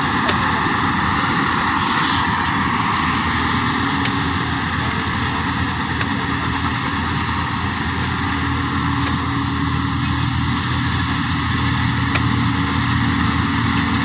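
An 8070 combine harvester cutting wheat: its engine and threshing machinery run steadily, growing slightly louder near the end as it comes closer.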